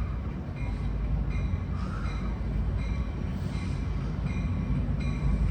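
Amtrak train led by an EMD F59PHI diesel locomotive rolling into the station, a steady low engine and wheel rumble with faint high-pitched squeals that come and go.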